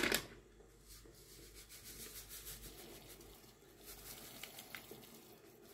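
Salt poured from a container into a pot of water holding pork trotters: a faint rustle and patter, with a few light ticks, after a short knock at the start.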